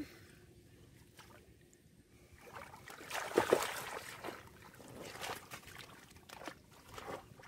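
Splashing and sloshing in shallow muddy water as hands grope through the mud. It is quiet at first, with a burst of louder splashes about three seconds in and lighter splashes after.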